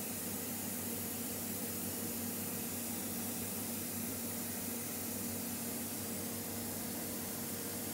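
Steady workshop background noise: an even hiss with a low machine hum underneath, unchanging throughout, with no distinct events.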